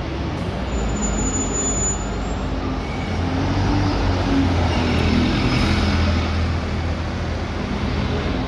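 Alexander Dennis Enviro 200 single-deck bus's diesel engine running as it pulls in close past the stand, louder about four to six seconds in, over steady bus-station traffic hum.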